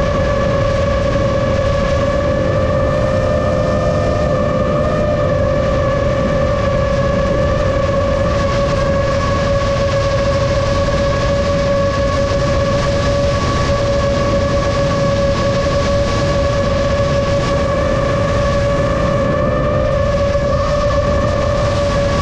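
7-inch FPV quadcopter's motors and propellers running in flight: a loud, steady buzzing whine over a rush of air, its pitch wavering only slightly.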